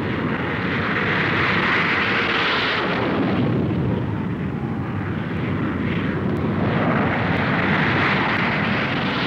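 F-100 Super Sabre jet fighters taking off, their jet engine noise swelling loudly twice, about two seconds in and again near the end, as each plane climbs past.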